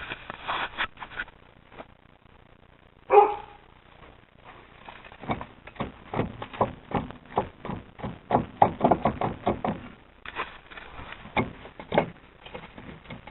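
A dog barks once, loud and short, about three seconds in. From about five seconds on comes a dense run of quick clicks and knocks.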